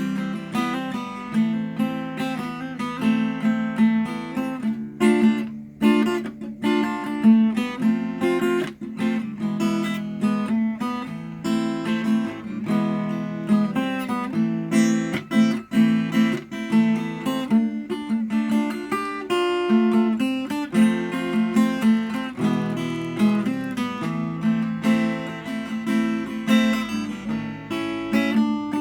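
Acoustic guitar being played without a break: a fast, dense stream of plucked notes mixed with strums.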